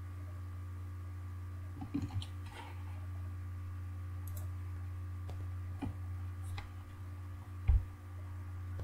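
Steady low electrical hum with a few scattered light clicks, and one louder low thump near the end.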